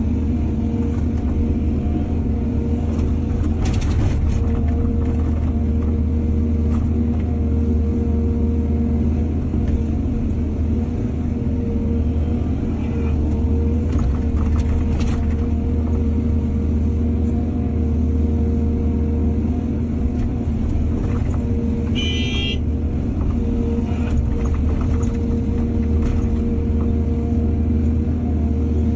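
Heavy diesel engine of earthmoving machinery running steadily under load, with scattered short knocks and a brief high-pitched squeal about three-quarters of the way through.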